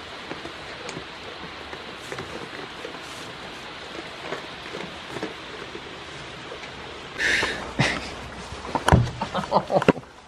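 Steady rain pattering on the barn roof, with a few faint ticks. About seven seconds in, a loud rustle breaks in, followed by a quick run of knocks and rustles.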